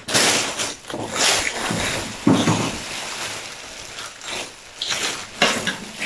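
Thin plastic bag crinkling and rustling as it is handled and pulled open, in uneven surges.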